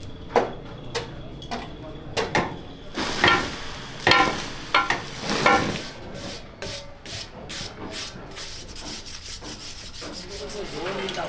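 Hand scraping and rubbing in moulding sand around a propeller pattern in a sand mould, as the mould is shaped. The strokes are irregular and strongest around the middle, then turn lighter and quicker.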